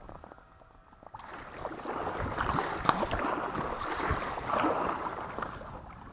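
Paddle strokes splashing in the water beside an inflatable kayak, starting about a second in, with a few sharp splashes or knocks among them.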